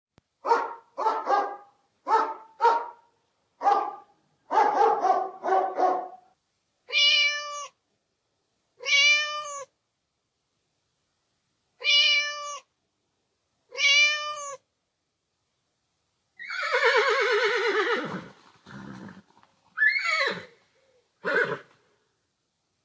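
A dog barking about eight times in quick bunches, then a cat meowing four times, each meow a clear rising-and-falling call. Near the end comes a long, loud animal call that falls in pitch, followed by a few shorter calls.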